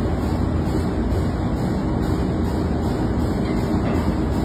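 Steady drone of a ship's engine-room machinery. The main engine itself is stopped and opened up for a piston overhaul, so the drone comes from the other plant running around it.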